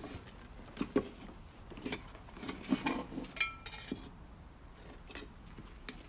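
Scattered light clinks, taps and knocks of small tools and objects being handled on a work table, with one short metallic ring a little past halfway.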